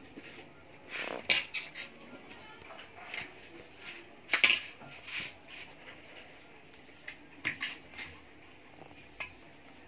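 Stainless steel plates clinking and knocking against the counter as they are handled, in a series of separate sharp clinks with the two loudest about a second in and near the middle.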